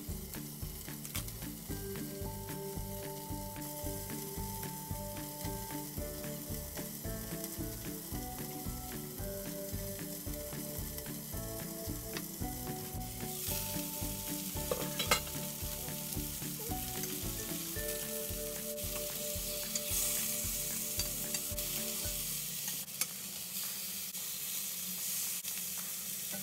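Food sizzling as it fries in a pan, with one sharp tap about halfway through. Background music with a steady beat plays underneath, its beat dropping out near the end.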